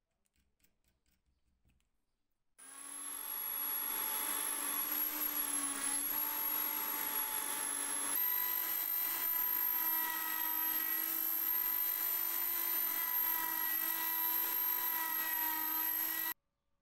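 Electric drill spinning a small steel part in its chuck while it is sanded with hand-held abrasive paper: a steady motor whine that starts suddenly a couple of seconds in, steps up slightly in pitch about halfway through, and stops abruptly just before the end.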